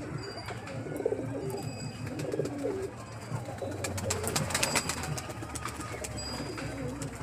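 Pigeon cooing: repeated low, wavering coos. A cluster of sharp clicks comes about four to five seconds in.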